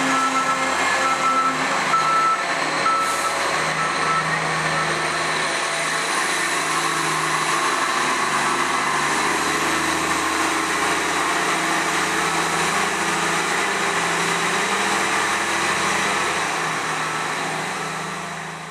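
Iveco front-lift garbage truck's diesel engine running steadily as the truck reverses, its reversing beeper sounding for the first few seconds. The sound fades out near the end.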